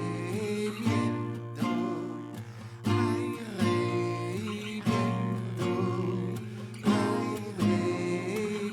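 Acoustic guitar strummed in a steady rhythm, a strong strum about every second, with a voice singing over it.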